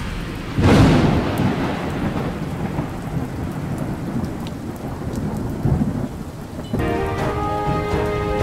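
A clap of thunder breaks about half a second in and rumbles away over several seconds, over steady heavy rain. Music comes back in near the end.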